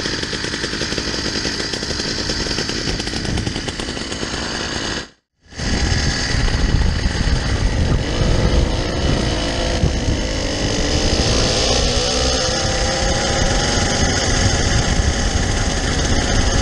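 Twin two-stroke bicycle engines of a motorized bicycle running with a dense buzzing note. After a brief cut about five seconds in they run under way with wind rumble on the microphone, and the engine note rises as the bike speeds up.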